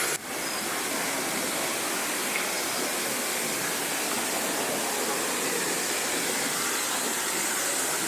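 Steady rush of falling water from waterfalls.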